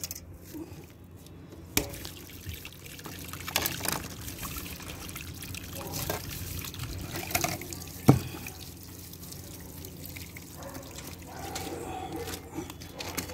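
Water trickling and dripping from a burst 3/4-inch CPVC water pipe as the broken joint is handled, with a few sharp knocks, the loudest about eight seconds in.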